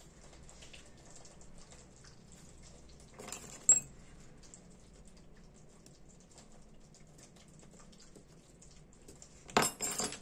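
Small metal clicks and clinks from handling a Ronson Premier lighter and fine tools: one sharp click about four seconds in and a short cluster of clicks near the end, with faint handling noise between.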